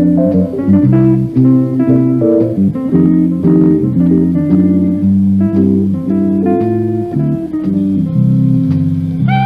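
Instrumental music: a run of plucked guitar notes over a bass line.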